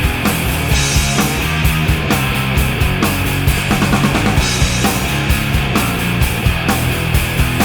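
Instrumental opening of a rock song: a full band playing over a steady drum beat, with no vocals yet.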